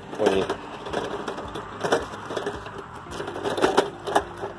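Neiko 36-inch magnetic pickup sweeper being pushed on its wheels over grass and gravel: a crunching roll with irregular sharp clicks and knocks, some ringing briefly, as metal bits snap up against the magnet.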